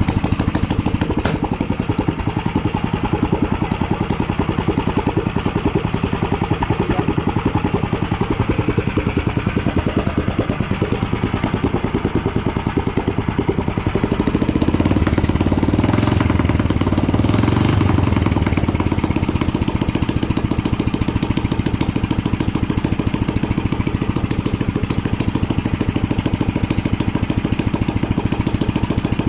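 A small engine running at a steady fast beat, swelling louder and a little higher for a few seconds about halfway through before settling back.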